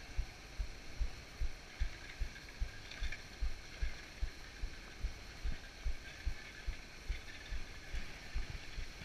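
City street traffic noise, with a regular run of dull low thumps about two or three a second.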